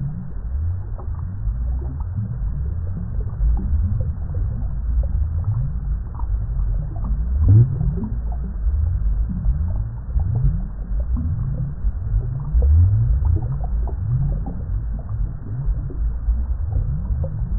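Water bubbling deep and low: a dense, continuous stream of bubbles, each a short upward-gliding blip, with a few louder ones now and then.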